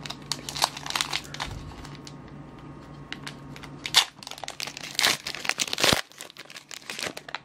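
Foil trading-card booster pack wrapper crinkling and tearing open in the hands, with irregular crackles and louder rips about four seconds in and again just before six seconds.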